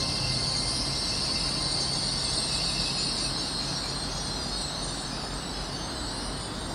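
GWR Hitachi Class 800 Intercity Express Train moving slowly past the platform as it leaves the station. There is a steady high hiss throughout, and a low hum that drops away about a second in.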